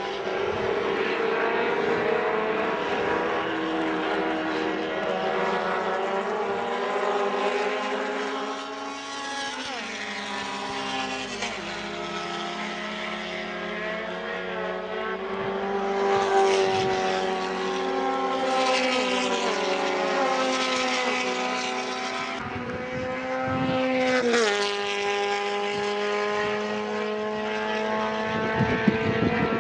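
Engines of several small-displacement 850 Promocional race cars running hard on track, their pitch dropping sharply several times as the cars go by and shift. Near the end, rough buffeting joins in.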